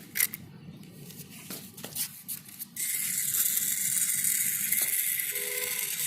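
Small solar-powered toy motor and gears whirring with a steady high buzz. It stops at the start, a few light clicks follow, and it starts up again about three seconds in, then cuts off near the end.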